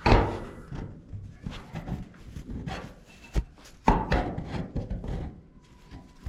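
Handling noise: a loud thump at the start, then irregular knocks and rubbing, with two sharp knocks a little past the middle.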